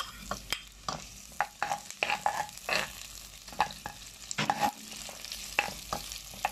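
A metal spatula scrapes and clinks against the pot in irregular strokes while stirring garlic and onion frying in oil, over a light sizzle.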